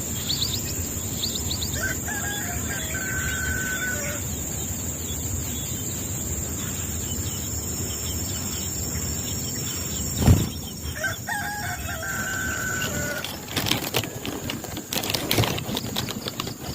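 A rooster crowing twice, about nine seconds apart, each crow rising into a long held note and dropping at the end, over a steady high whine. There is one loud thump a little past the middle, and scattered clicks near the end.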